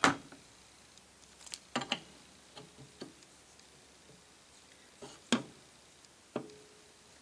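Short, sharp metal clanks and clinks, about six in all, the loudest right at the start, some with a brief ring. They come from the side cover and shift forks of a Warner three-speed transmission being handled and repositioned on the gearbox case because the cover would not seat fully.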